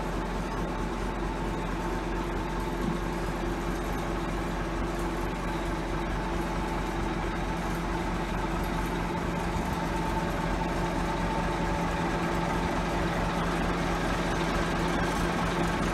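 Mobile crane's engine running steadily, growing slightly louder toward the end.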